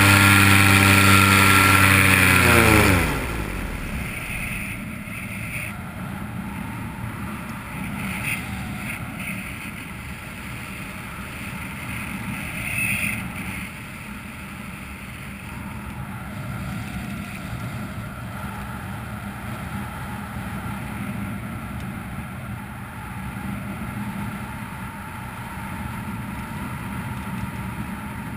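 Vittorazi two-stroke paramotor engine running at steady power, then cutting out about two and a half seconds in and spinning down with a quickly falling pitch: the engine has quit in flight with its spark plug blown out of the cylinder head. After that, a steady rush of wind on the microphone as the paramotor glides engine-off.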